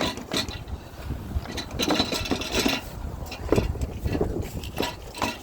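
Irregular plastic scraping and knocks as a car headlight assembly is worked and pulled out of its mounting.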